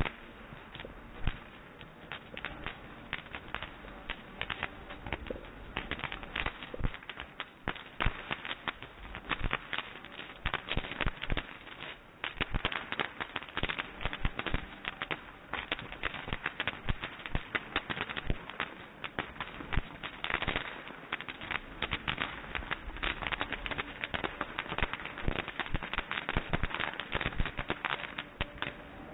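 Ground fireworks fountains firing on a display stand: a dense, continuous crackle of sharp pops, with a few louder single bangs here and there.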